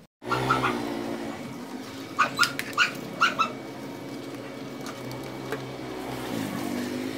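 A dog whining in a long drawn-out tone, with a quick run of short yelps in the middle.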